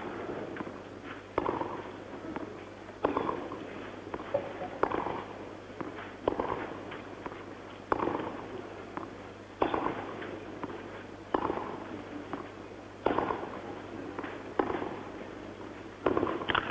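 Tennis ball struck back and forth in a baseline rally: sharp racket hits about every second and a half, about ten in all, with fainter knocks between them.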